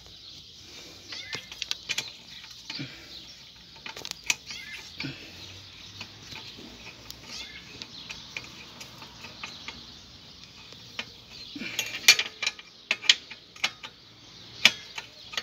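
Scattered metallic clicks and taps of hand tools, a 13 mm open-end wrench and a socket wrench, working the exhaust header bolts of a Honda Bros 125 motorcycle. The clicks are sparse at first, with a quicker run of sharper clacks near the end.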